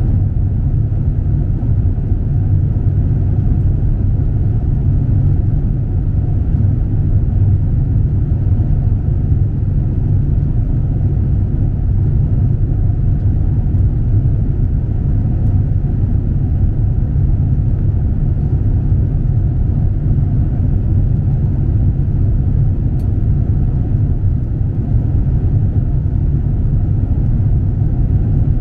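In-flight cabin noise of an Airbus A350-900 airliner: a steady, loud low rumble that stays even throughout, with no changes in pitch or level.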